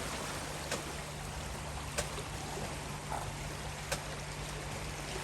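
Steady rush of floodwater flowing across a ford, with a low steady hum underneath and three faint sharp clicks.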